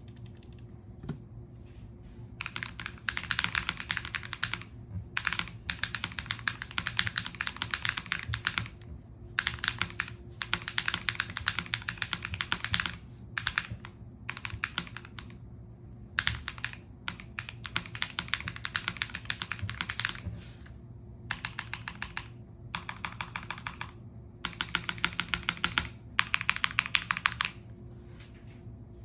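Custom mechanical keyboard being typed on in quick runs of clacky keystrokes, broken by short pauses between runs.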